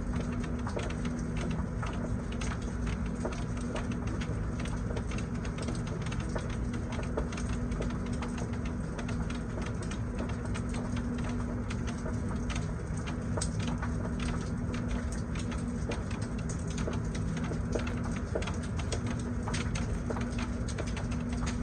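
Rain shower falling steadily, with many separate drops pattering and dripping, over a low steady hum that drops out now and then.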